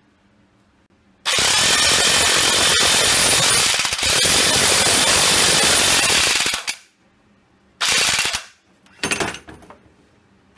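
Impact wrench hammering a puller bolt into the primary drive clutch to press it off the crankshaft: one long run of about five seconds with a brief break in the middle, then two short bursts.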